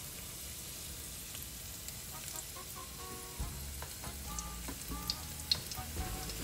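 Spring rolls shallow-frying in hot vegetable oil: a steady sizzle with scattered small pops and crackles.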